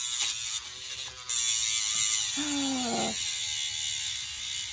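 A steady high buzz, as of a small electric motor, comes in about a second in and keeps going. A short falling cry sounds over it near the middle.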